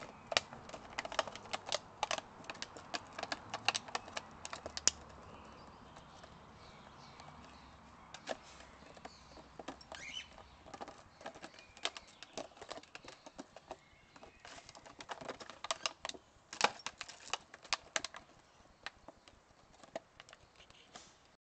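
Crinkly plastic bottle crackling and clicking as a puppy chews and paws at it, in quick irregular bursts that thin out for a few seconds about a quarter of the way in, then pick up again.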